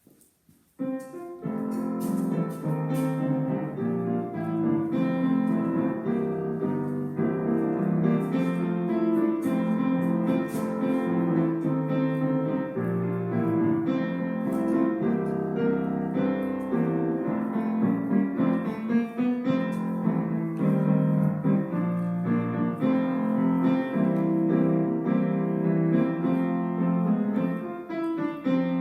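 Piano music, starting about a second in and playing steadily with changing chords.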